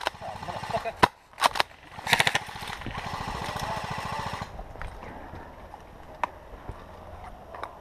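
Airsoft guns firing in a skirmish: a few sharp single shots, a short rapid burst about two seconds in, then scattered single shots.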